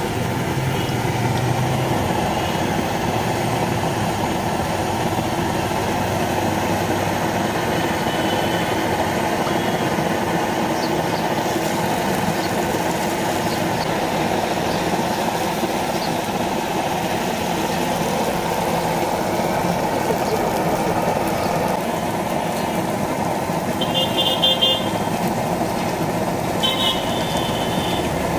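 Steady sizzle of batter frying in hot oil in a small iron karahi, with street traffic noise behind it. Near the end two short, high-pitched horn toots sound a few seconds apart.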